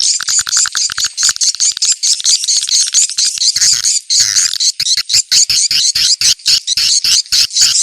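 Recorded swiftlet calls, the 'ceklok' lure sound played to draw swiftlets to a site: a dense, high-pitched chittering and twittering. A fast clicking trill comes near the start, and from about five seconds in the calls fall into quick, regular pulses.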